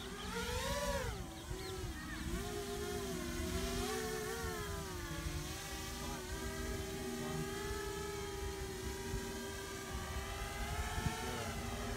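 Eachine V-Tail 210 FPV racing quadcopter's brushless motors and propellers whining in flight. The pitch rises sharply about a second in, then goes up and down with the throttle before holding steady through the second half.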